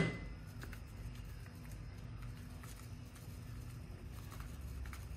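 A few faint, scattered taps and rattles from a plastic shaker of garlic powder being shaken over a bowl of raw chicken, over a steady low background hum.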